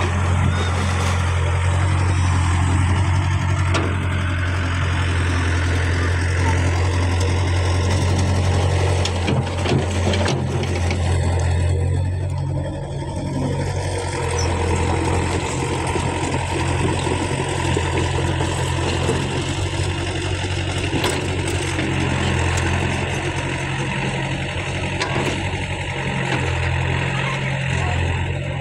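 Caterpillar E70B hydraulic excavator's diesel engine running with a steady low drone while the machine works its arm and tracks through pond mud. The engine dips briefly about twelve seconds in.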